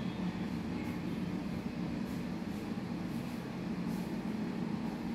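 Steady low background hum, with a few faint soft rustles over it.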